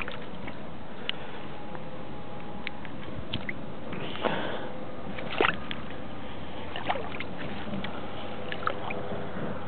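Short sloshes and rustles of water and a wet cloth being handled at the water's edge, the loudest about four and five and a half seconds in, over a steady rushing background with scattered small clicks.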